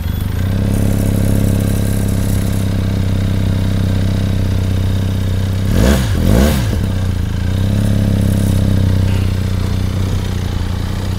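Benelli 502C's 500 cc parallel-twin engine idling steadily through its stock exhaust, blipped twice in quick succession about six seconds in and dropping straight back to idle.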